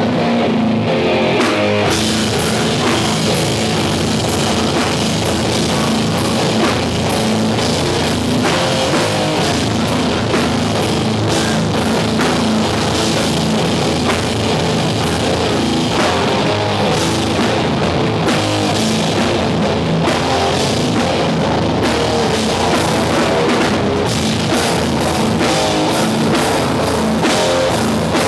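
Hardcore punk band playing live: distorted electric guitars, bass and a drum kit, loud and unbroken.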